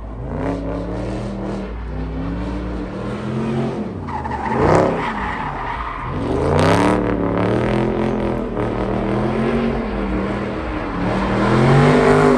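Muscle car doing donuts, its engine revving up and down again and again while the tyres screech against the pavement.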